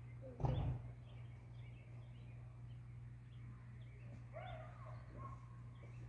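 Faint, scattered bird chirps in the distance over a steady low hum, with one loud thump about half a second in.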